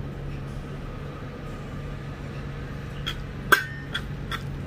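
Fingers mixing rice and egg curry on a stainless steel plate, with a few soft clicks and one sharp clink about three and a half seconds in. A steady low hum sits underneath.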